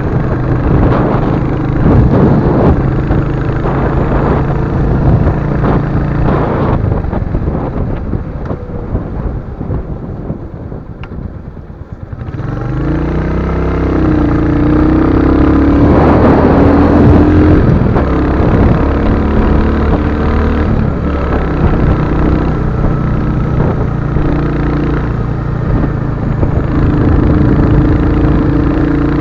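Royal Enfield Hunter 350's single-cylinder engine running on the move. It eases off and goes quieter about a third of the way through, then pulls again with rising revs and settles into a steady run.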